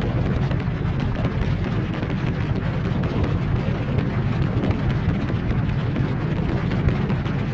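A steady low rumble: a dense, even noise weighted toward the bass, with no distinct knocks or tones.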